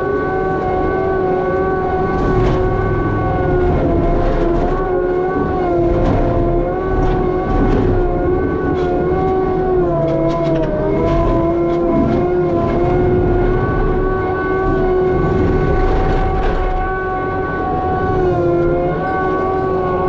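Skid steer working hard with a Harley power rake: engine and hydraulics run with a steady whine whose pitch sags now and then as the rake takes load, over a low rumble. Scattered knocks come through as well.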